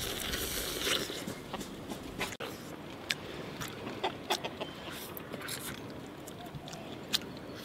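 A person gnawing meat off a braised duck neck: irregular small clicks and smacks of biting and chewing, scattered through the stretch.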